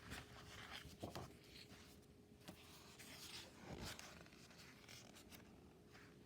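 Near silence with faint, scattered paper rustling and light rubbing, as a picture book's pages are handled and turned, over a faint steady hum.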